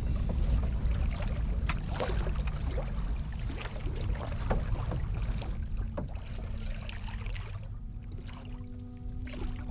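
Paddling a 15-foot Nova Craft Prospector canoe on choppy water: paddle strokes splashing and water slapping the hull every second or so, over a heavy low rumble of wind on the microphone. A quick run of about six high chirps comes a little past the middle, and soft music comes back in near the end.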